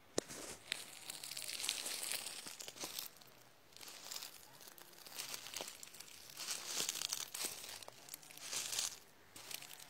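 Close rustling and crinkling right at the microphone, in several bursts with scattered clicks, as the filming device is moved about.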